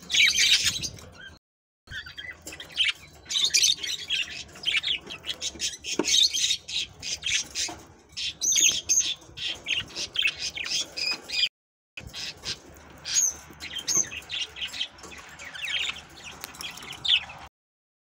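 A group of budgerigars chattering with rapid, high-pitched chirps and warbles. The sound breaks off into dead silence twice, briefly, and stops just before the end.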